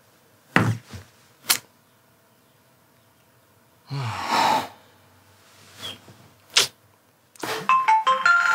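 A few sharp clicks, then a person's breathy exhale about four seconds in. Near the end comes a short electronic jingle of stepped tones from a smartphone, a message alert.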